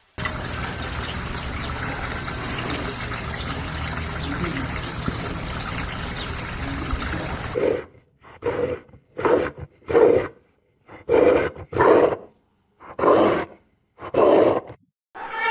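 A steady rushing noise, like running water, cuts off abruptly about halfway through. It is followed by a run of about ten short animal calls of similar pitch, separated by brief silences.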